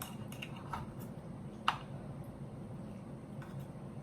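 Knife and fork clicking lightly against a plate a few times while a piece of T-bone steak is cut, with one sharper click just under two seconds in, over a steady low hum.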